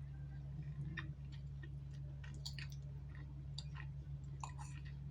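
Close-miked chewing of food: scattered small clicks and smacks from the mouth, over a steady low hum.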